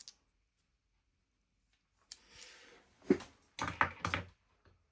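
Hard metal parts being handled, most likely steel lathe centers: a sharp click about three seconds in, then a quick run of clicks and knocks a moment later.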